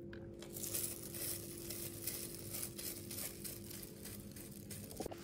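Soft, irregular crinkling and rustling of fried tofu puffs and a rice-vermicelli filling being handled, scraped out and pressed in by hand.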